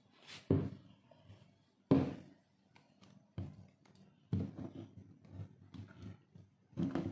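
Handling noise from a phone camera being moved against clothing: about five short thumps and rustles, irregularly spaced.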